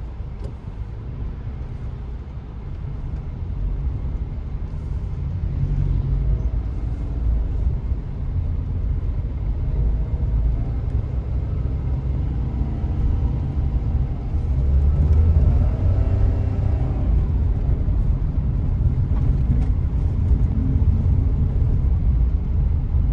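Car driving on a city road, heard from inside the cabin: a steady low rumble of engine and tyres that grows louder over the first half as the car picks up speed, then holds.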